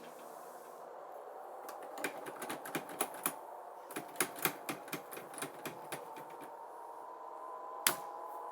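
An irregular run of light clicks and taps over a faint steady hum, then a single sharper knock near the end.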